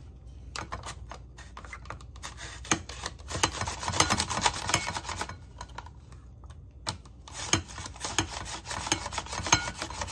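A vegetable scraped back and forth over a kitchen slicer's blade in quick rasping strokes, coming in two spells with a short pause between them.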